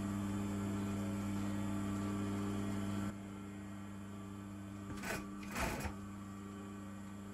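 Brother industrial sewing machine with its motor humming steadily, then two short bursts of stitching, about half a second apart, a little past the middle.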